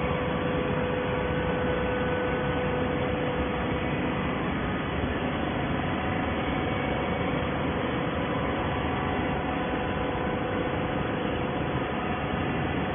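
Steady machine noise of an automatic horizontal waste-paper baler and its feed conveyor running: an even din with a faint steady hum.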